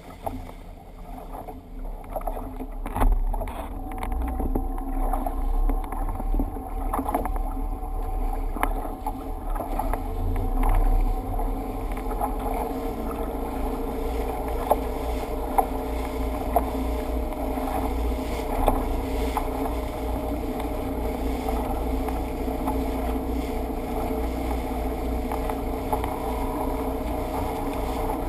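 Motorboat running at speed, heard from a camera mounted low on the side of the hull: a steady engine drone with wind rumbling on the microphone and water rushing past. There are knocks and rubbing through the first several seconds while the camera is handled, and a few sharp ticks later on.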